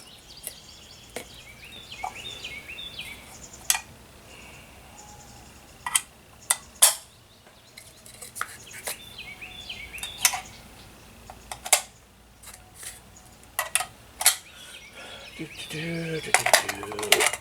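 Scattered light metallic clicks and clinks of ammunition and rifle being handled, with birds chirping faintly twice.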